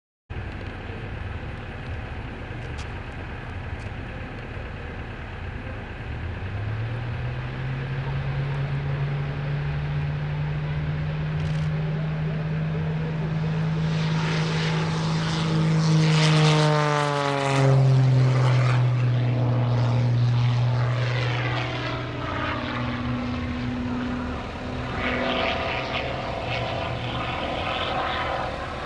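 MXS aerobatic plane's propeller engine on its takeoff run. The engine rises in pitch about six seconds in and holds steady. It grows loudest as the plane lifts off and passes close by, with a sharp drop in pitch about seventeen seconds in, then goes on steadily as it climbs away.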